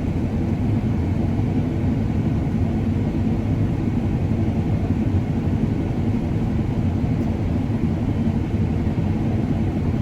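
Combine harvester running steadily while cutting wheat, a constant low engine drone with no change in pitch or level.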